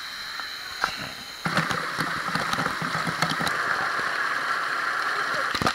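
Rushing water of a cascade over rocks, steady at first; about a second and a half in it turns suddenly louder and closer, a dense splashing gush with gurgles, as the water pours over the camera. A heavy thump comes near the end.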